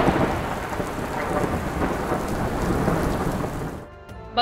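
Heavy rain pouring with a low rumble of thunder, a steady rushing that fades out near the end.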